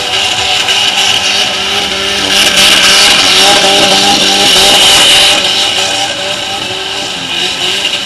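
Car engine held at high revs, its pitch wavering up and down while the car spins donuts with its wheels spinning on loose dirt. The engine and wheelspin hiss are loudest from about two and a half to five seconds in as the car swings close by, then ease off.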